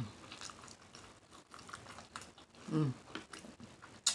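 Close-up chewing and lip smacking of food, with many small wet clicks. A brief low hum comes about three seconds in, and a sharp smack near the end.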